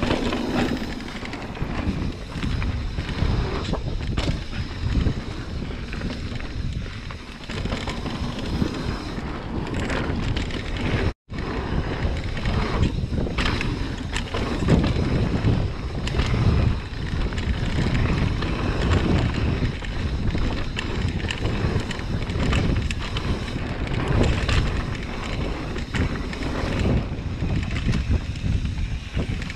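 Mountain bike riding fast down dirt singletrack: wind buffeting the microphone over tyre noise on dirt, with frequent knocks and rattles from the bike over bumps. The sound cuts out for an instant about eleven seconds in.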